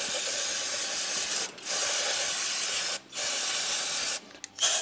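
Aerosol spray can hissing as it sprays out a reusable oil filter, in three long blasts of a second or so each with short breaks between them, then a couple of brief spurts near the end.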